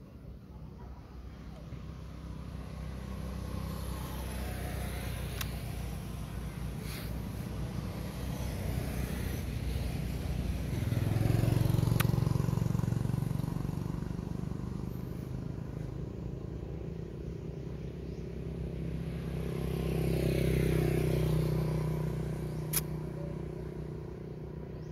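Road traffic: motor vehicles passing by as a low rumble that swells and fades twice, loudest about halfway through and again toward the end, with a few faint sharp clicks.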